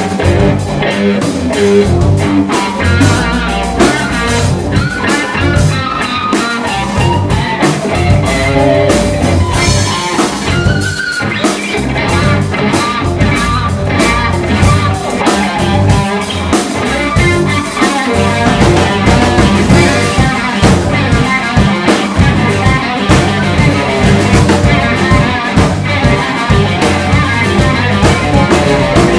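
Live rock band playing instrumentally: a Stratocaster-style electric guitar plays lines that bend up and down in pitch over a drum kit keeping a steady beat.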